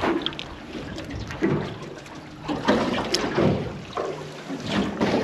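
Water sloshing and slapping against the hull of a drifting aluminium fishing boat, with a few louder slaps.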